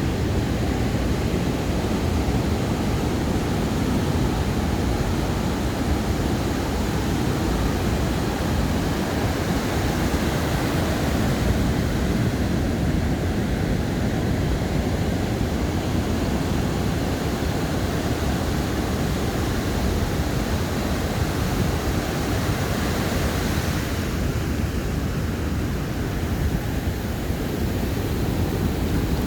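Ocean surf on a sandy beach: a continuous rushing wash with a deep low rumble, swelling a little around the middle and easing near the end.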